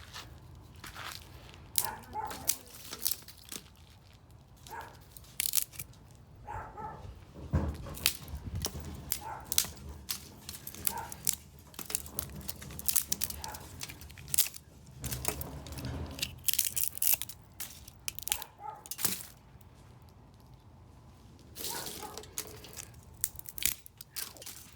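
Wooden branches being snapped and broken: a long irregular series of sharp cracks and splintering, with a few heavier low thuds among them.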